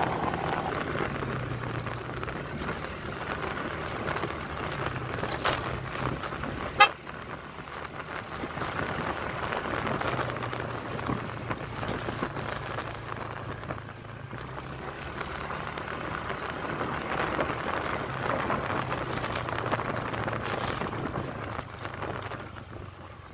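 Motorcycle engine running as it is ridden, its low note rising and falling slightly over a steady rush of noise, with one sharp knock about seven seconds in. The sound fades near the end.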